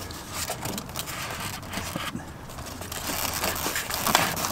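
Irregular scraping and crackling of an RV water heater being pulled out of its wall opening, its frame rubbing against the edges of the cut-out.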